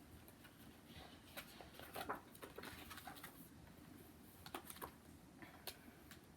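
Near silence with faint paper rustles and small scattered clicks of a large picture book being handled.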